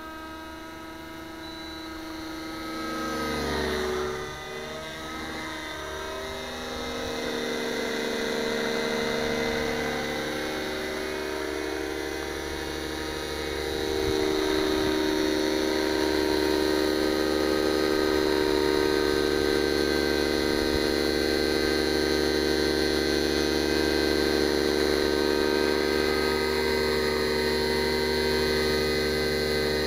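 Nitro-powered RC helicopter (JR Vibe 55 with an O.S. glow engine) in flight: the high-revving engine and rotor make a steady whine. Its pitch dips and recovers a few seconds in, and the sound gets louder at about 14 seconds, then holds steady as the helicopter flies low near the grass.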